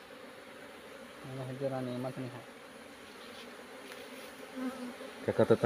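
Honey bees buzzing steadily around an opened wooden hive box as its comb frames are handled.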